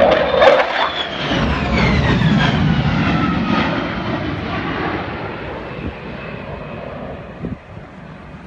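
Twin-engine F-18 jet flying past, its engine whine falling in pitch as it goes by and then fading away.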